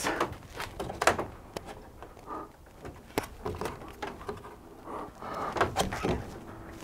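Hands slapping onto and gripping the wooden holds of a snatch board made of two stacked fingerboards: a scatter of sharp knocks and taps, several in quick pairs, as the climber moves between rungs.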